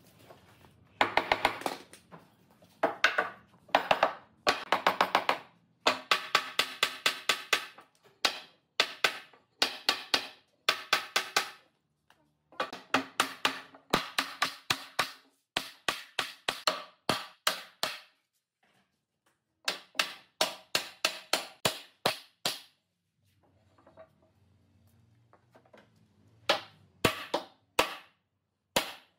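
Wooden mallet knocking on a pine tabletop to seat it onto the legs' joints: quick runs of sharp, ringing wooden knocks, several a second, broken by short pauses.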